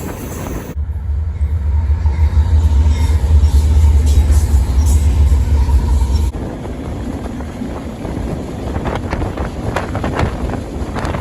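Freight train in motion heard from close by or aboard: a loud low rumble for about five seconds, then an abrupt change to a lighter rolling noise with scattered clanks and rattles.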